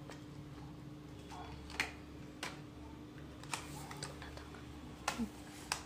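Sparse light clicks and taps from children's plastic toys being handled, about half a dozen at irregular intervals, over a faint steady hum.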